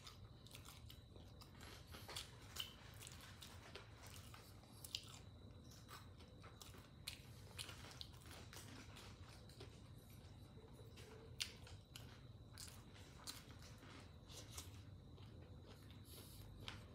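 Quiet close-up eating sounds: a person chewing crispy fried catfish in a spicy stir-fry, with scattered soft crunches, mouth clicks and finger-licking smacks.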